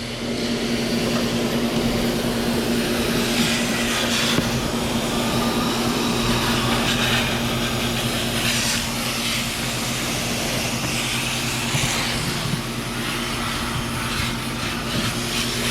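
Garden hose spraying water onto the coil fins of an air conditioner condenser, a steady hiss that swells and eases as the spray moves, over a steady low hum.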